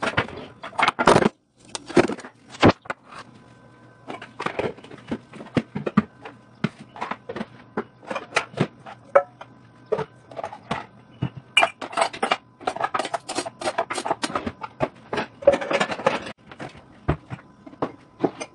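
Pots, pans and dishes being handled and put away: irregular clatters, clinks and knocks of metal and plastic cookware, over a faint steady hum.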